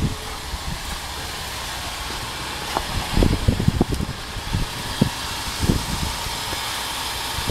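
2012 Honda Pilot's 3.5-litre V6 idling steadily shortly after a cold start in freezing weather. A run of irregular low thumps comes between about three and six seconds in.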